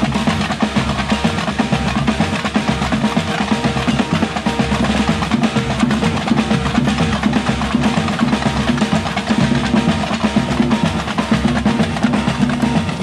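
Batucada street percussion band playing a steady, dense samba rhythm: a snare drum and a strap-hung drum beaten with sticks, over many small hand-held tamborim frame drums struck with sticks.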